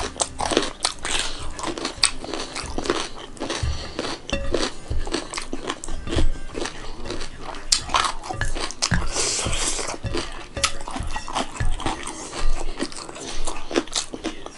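Close-up eating sounds: chewing and crunching with wet mouth smacks, in an irregular run of small clicks.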